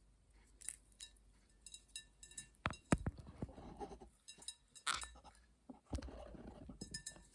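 Green-cheek conure busy with walnut pieces on a table: scattered small clicks, taps and clinks of beak and nut pieces against the tabletop and bowls, with a couple of sharper knocks about three seconds in.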